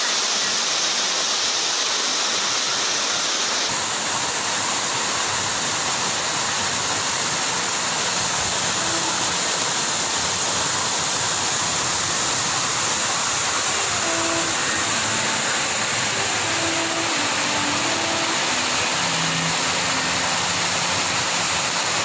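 Water rushing steadily over rocks in an artificial cascade and shallow stream, heard close to the water.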